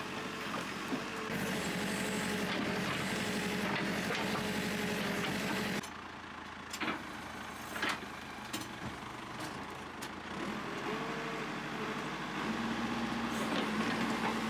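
Caterpillar 438C backhoe loader's diesel engine running steadily, with a few sharp knocks in the middle; its engine note steps up near the end.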